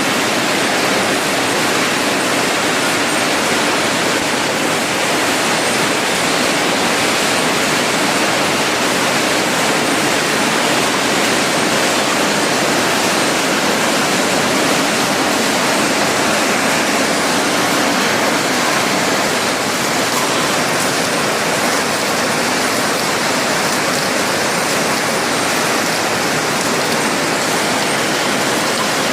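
Automatic cashew nut cutting and shelling machine running: a loud, steady, dense mechanical noise that does not change.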